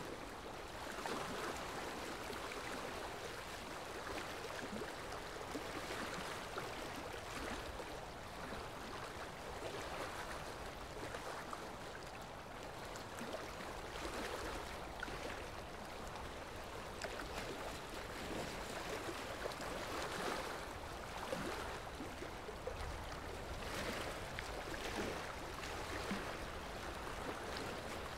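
Steady flowing water, like a stream, with gentle swells in level every few seconds.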